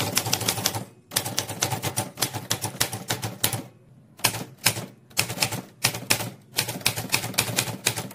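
Typewriter sound effect: rapid key clacks, several a second, with two short breaks, the first about a second in and the second around the middle.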